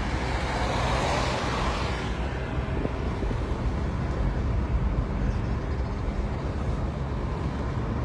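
Car driving along a paved road, heard from inside the cabin: a steady engine and tyre rumble, with a brief swell of rushing noise in the first two seconds.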